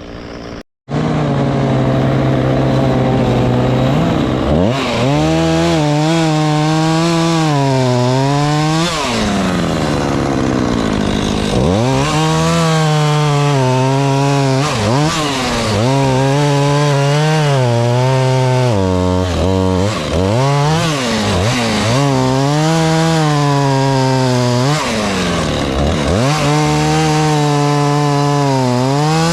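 Two-stroke chainsaw engine running, revved up repeatedly and held at high speed for several seconds at a time, its pitch wavering while held and dropping back between revs.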